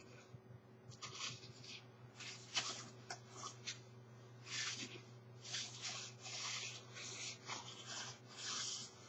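Hand rubbing over the shiny nylon shell of a padded winter parka: a string of irregular rustling swishes, one or two a second, some louder than others.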